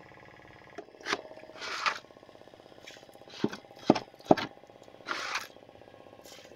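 Knocks and thuds on a wooden country boat's hull as a man moves about and handles things inside it: four sharp knocks, the last three close together, with two short scraping noises between.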